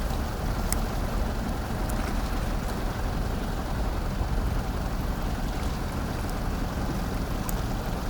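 Wind buffeting the microphone over a steady low rumble by the harbour, with a few faint ticks.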